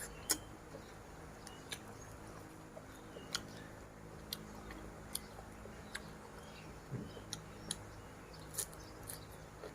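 Scattered light clicks and taps of kitchen utensils and ingredients being handled, irregular, roughly one a second, with the sharpest click just after the start. A faint steady low hum lies underneath.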